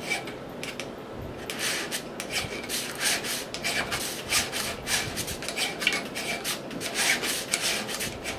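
Hand metal file scraping across a steel stepper-motor shaft clamped in a vise, in short one-way push strokes, lifted on the return. The strokes come quicker and louder from about a second and a half in, about three a second. The shaft is being filed flat so that a pulley's set screw has a flat to bite into.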